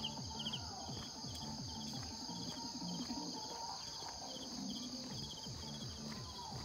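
Insects chirping in a steady chorus, short cricket-like trills repeating about twice a second over a high hiss, with soft background music underneath.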